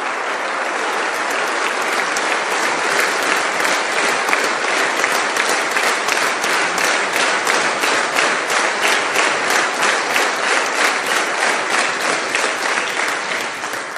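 Large seated audience applauding steadily; in the second half the clapping falls into a loose shared beat of about two to three claps a second before fading out near the end.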